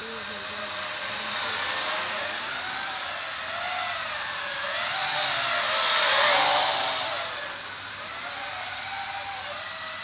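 Remote-control quadcopter's four electric motors and propellers whining, the pitch wavering up and down as the motors change speed to steer it. It gets louder toward the middle as the quadcopter passes close overhead, then falls back.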